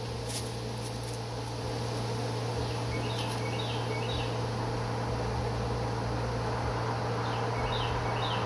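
Steady outdoor background: a constant low hum under a broad hiss, with a bird chirping in short runs of notes about three seconds in and again near the end.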